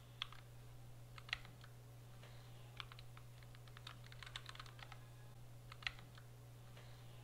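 Faint keystrokes on a computer keyboard: scattered single clicks, with a quicker run of keys about four seconds in.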